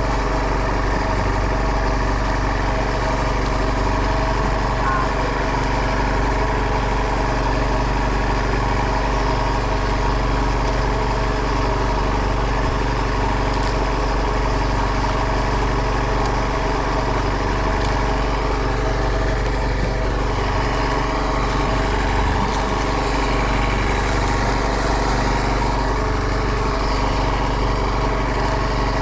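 Fishing boat's engine running steadily at a constant, low speed.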